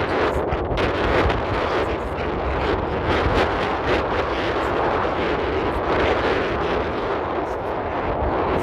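Wind buffeting a phone's microphone: a steady, loud rumble that covers almost everything else.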